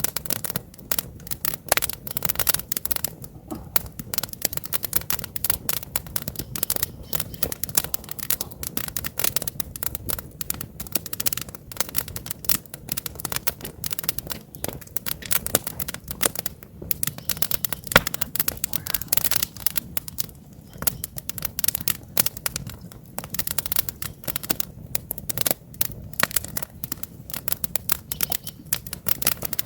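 Wood campfire burning with dense, irregular crackling and snapping, and one louder pop a little past halfway through.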